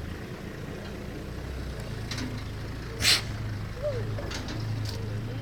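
Low steady hum of an idling vehicle engine, with one short, sharp hiss about three seconds in.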